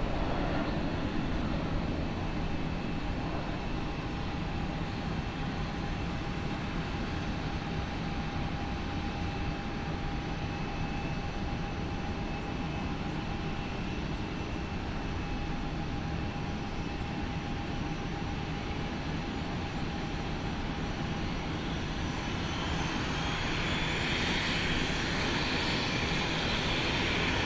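Pilatus PC-12's single Pratt & Whitney PT6A turboprop engine running at low power during its landing roll and taxi: a steady hum with a faint steady whine. Near the end it grows louder and a higher whine rises.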